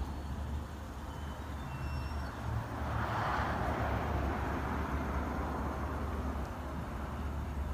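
Outdoor traffic noise: a steady low rumble, with a vehicle passing by about three seconds in, swelling and then fading away.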